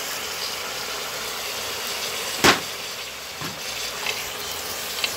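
Tomatoes and onion sizzling in hot oil in a pressure cooker over a high flame, a steady hiss, with one sharp knock about two and a half seconds in.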